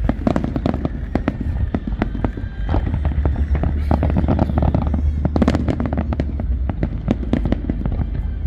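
Fireworks display: a dense, continuous run of bangs and crackles, many a second, over a steady low rumble.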